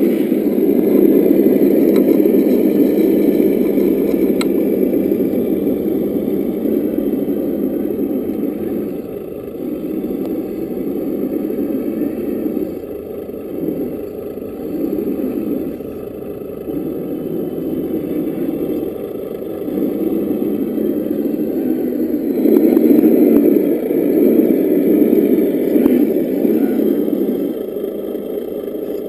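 Simulated engine sound from the RC truck's EssOne sound module, played through its small onboard speaker, easing in the middle and swelling again near the end with the throttle as the truck crawls up a sandy slope.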